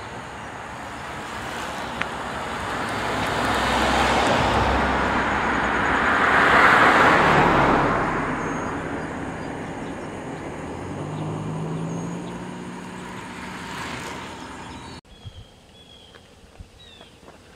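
A motor vehicle passing close by on the road, its tyre and engine noise swelling to a peak about seven seconds in and then fading away. About fifteen seconds in, the sound drops abruptly to a quiet background with a few short high chirps.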